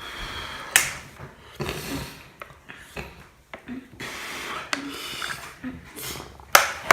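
Someone drinking from a plastic water bottle: the thin plastic crinkles and rubs, with scattered sharp clicks and the loudest crack near the end.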